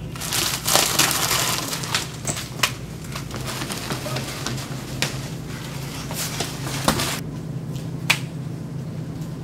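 Grocery packages crinkling and clattering as they are grabbed and thrown, with many sharp clicks and knocks over about seven seconds, then one more click near the end, all over a steady low hum.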